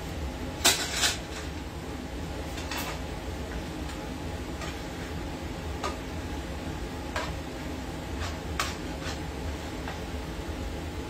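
A metal spoon stirring ground meat in a nonstick skillet, knocking and scraping against the pan several times, with the two loudest knocks about a second in. A steady low hum runs underneath.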